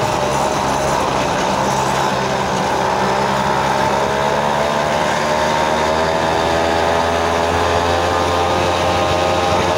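Small engine of a motorized tricycle running steadily while riding, its pitch wavering a little, with road and wind noise.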